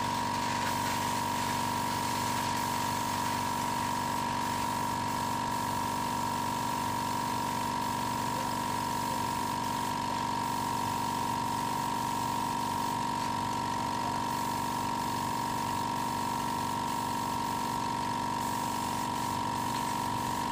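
A small electric motor running steadily with a constant high-pitched hum that does not change.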